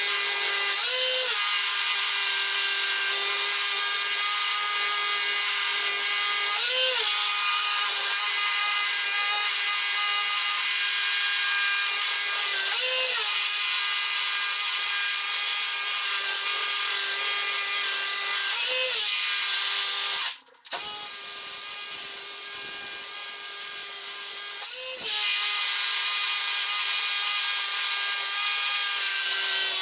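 Electric power tool working concrete, running continuously with a steady high whine and a small pitch lift about every six seconds. It cuts out for a moment about twenty seconds in, then runs slightly quieter before coming back to full level.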